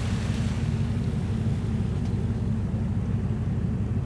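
Steady low rumble of the cruise ship Azamara Journey's machinery, heard from the deck, with wind on the microphone and a wash of sea water that fades in the first second.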